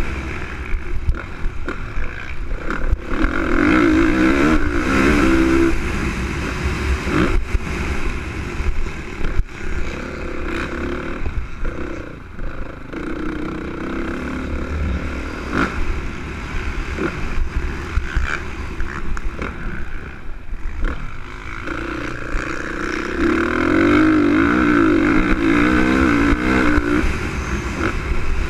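2013 Honda CRF450R single-cylinder four-stroke motocross engine under hard riding, pitch rising and falling with the throttle, with long full-throttle pulls a few seconds in and again near the end and a brief drop-off in the middle. A steady low rumble from wind on the onboard microphone and a few sharp knocks from the bike over the track run beneath it.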